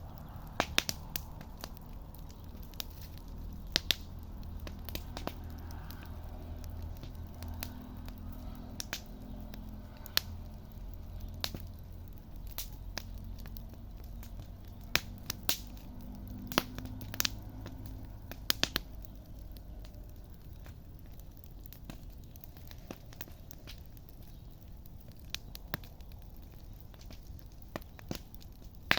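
Wood campfire crackling, with sharp pops and snaps at irregular intervals.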